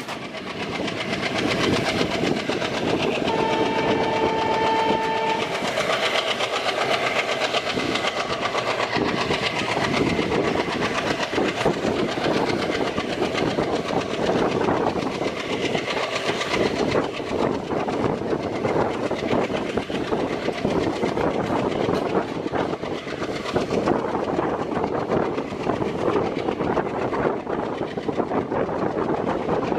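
Moving passenger train heard from on board, wheels clicking over the rail joints with a steady rumble. About three seconds in, a train horn sounds once for about two seconds.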